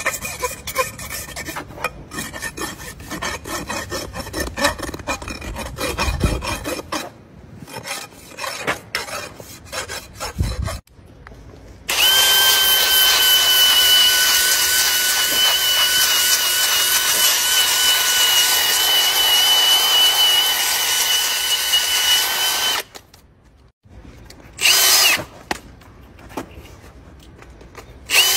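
Hand hoof rasp scraping the horse's hoof wall in quick, uneven strokes for about the first eleven seconds. A handheld electric power tool then runs steadily against the hoof with a high, even whine for about eleven seconds, stops, and gives one short burst a couple of seconds later.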